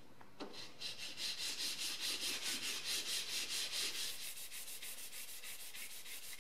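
Hand sanding of body filler on a car's steel sill with sandpaper, in quick back-and-forth rubbing strokes about four a second. The filler covers a surface-rust repair that has been ground back to bare metal and treated, and it is being flatted before paint. The strokes start about half a second in and ease off a little after the first few seconds.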